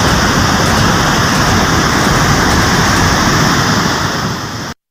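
Loud, steady rush of a river in flood, torrential water, cutting off suddenly near the end.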